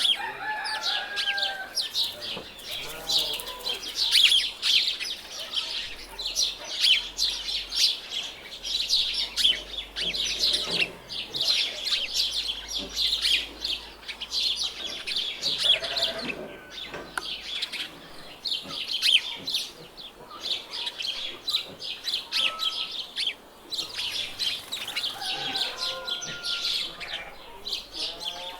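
Farmyard ambience: many small birds chirping continuously in a dense chatter, with a few lower calls from chickens now and then.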